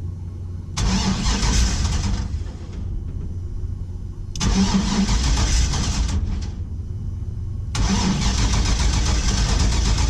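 Starter cranking the swapped-in GM L96 V8 in three attempts of a couple of seconds each, the engine not catching. The cause is suspected to be fuel more than a year old.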